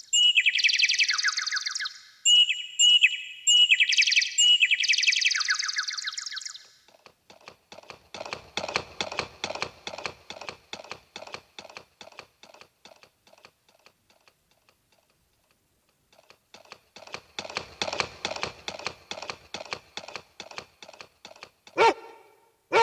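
Sound effects played on a Roland E-12 keyboard: high bird-like chirping and trills first, then two long runs of rapid, evenly spaced clicking taps, like typing. A short bark-like burst comes near the end.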